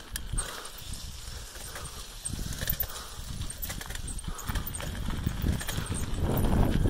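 Rumble and irregular knocking from a camera moving along a paved trail, with wind on the microphone, growing louder near the end.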